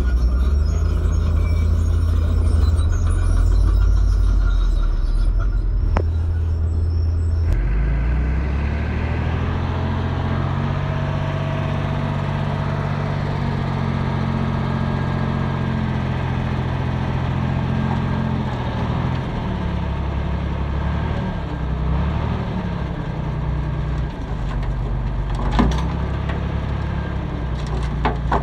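Komatsu bulldozer's diesel engine running as it pushes gravel and soil. About seven seconds in, this gives way to a dump truck's diesel engine held at raised, steady revs while its hydraulic hoist tips the bed, easing off after about ten seconds. Near the end, a couple of knocks as rocks tumble out of the bed.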